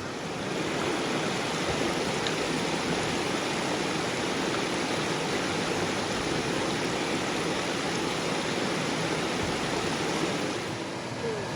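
Steady rush of flowing creek water, louder from about half a second in until shortly before the end.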